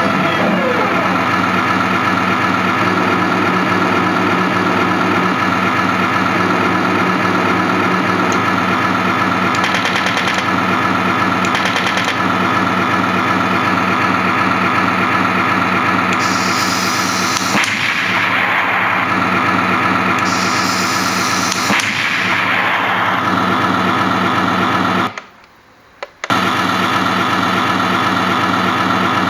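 Synthesised tank engine sound from a Heng Long TK6.1 RC tank sound board's Leopard 2A6 package, played through a home cinema speaker, running steadily. Gun-firing sound effects sound over it in the middle. Near the end the sound cuts out for about a second, then resumes.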